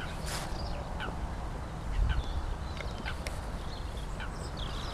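Waterbirds calling across the lake in short, scattered, falling calls, over a low steady rumble of wind on the microphone.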